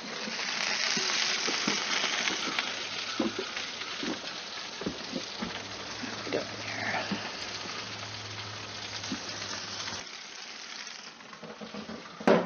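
Bacon-wrapped chicken sizzling on a Broil King barbecue grill, with scattered pops of spitting fat. The sizzle is strongest in the first few seconds and fades about ten seconds in. A sharp knock sounds near the end.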